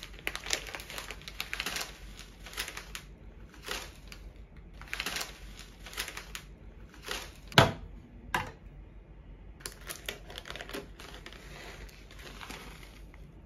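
A plastic packet of shiratamako (glutinous rice flour) being turned over and handled, crinkling in quick, irregular crackles, with one sharp, louder crackle about seven and a half seconds in.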